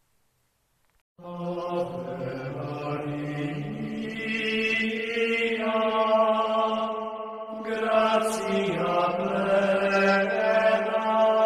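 Sung religious chant begins about a second in: a voice holding long, sustained notes that change pitch only now and then.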